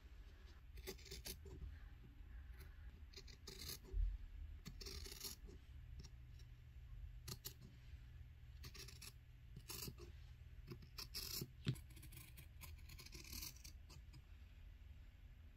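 Faint, irregular short scrapes and rustles of small objects being handled, with a soft thump about four seconds in and a sharp tap about three-quarters of the way through.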